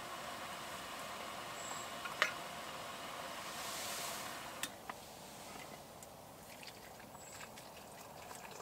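Steady hiss from the small wood-burning tent stove with a kettle heating on top, which drops away about five seconds in. A few sharp clicks and light metal clinks as a metal mug and utensils are handled.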